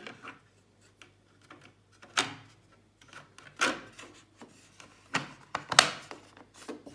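Hands handling a TV stand's neck and its cable cover: rubbing and fumbling with several sharp clicks and knocks, the loudest near the end.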